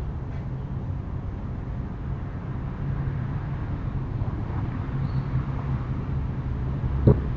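A steady low hum, with one sharp knock about seven seconds in: a sliding storm shutter (amado) on a house's upper floor banging.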